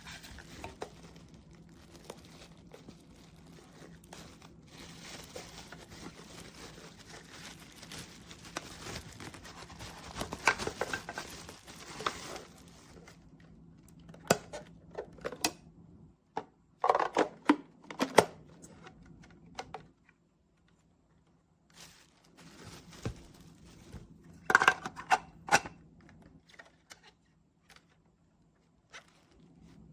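Handling noises: soft rustling and scraping, then scattered sharp knocks and clicks, with two louder clusters of clatter in the second half.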